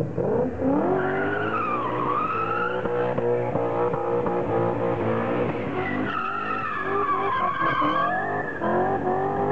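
BMW M5 E39's 4.9-litre V8 revving hard while its rear tyres spin and squeal through a smoky donut. The engine climbs sharply at the start, then swings up and down with the throttle.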